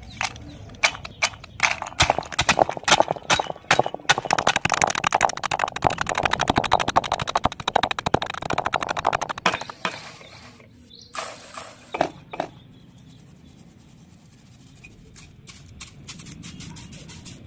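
Dry clay being bitten and chewed: a string of sharp crunches, then several seconds of dense crackling crunching, followed by a few scattered crunches after a quieter spell.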